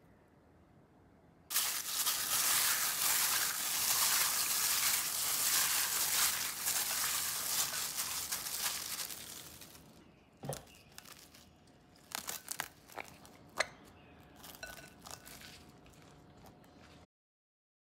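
Thin disposable plastic gloves crinkling and rustling steadily as hands massage marinade into raw chicken wings, for about eight seconds. After that, scattered sharp plastic crackles as cling film is stretched over the bowl.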